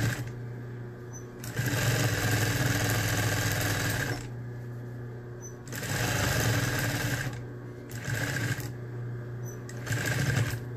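Industrial sewing machine stitching a hem through terry towel and bias tape in four bursts, the longest lasting over two seconds near the start. Its motor hums steadily between the bursts.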